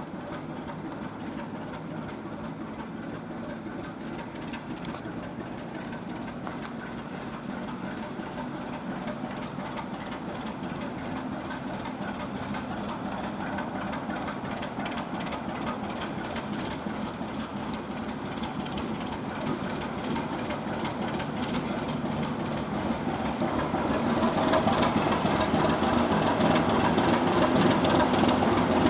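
ChME3 diesel shunting locomotive's six-cylinder diesel engine running steadily as it hauls a string of freight wagons, growing louder as it nears. In the last few seconds a fast ticking of wheels and running gear joins the engine drone.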